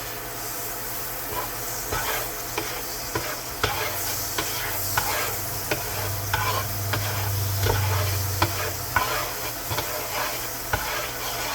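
Butter sizzling in a hot pan while a spatula scrapes and taps across the pan, spreading the butter around.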